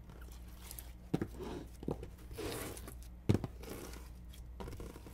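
A large batch of homemade glitter slime being stretched and peeled out of a plastic tub onto a table: soft sticky tearing and crinkling, with two short sharp clicks about a second in and again just past three seconds.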